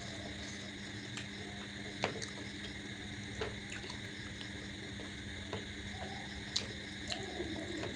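Wet mouth clicks and smacks of someone chewing luchi with potato curry: a few separate sharp clicks over a steady background hum.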